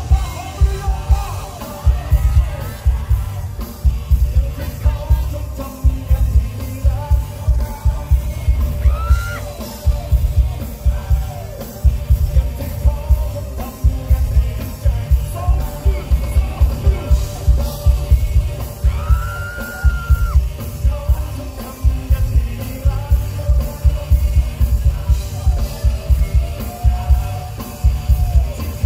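Loud amplified concert music through the stage PA: a heavy, steady bass beat with voices singing and yelling over it.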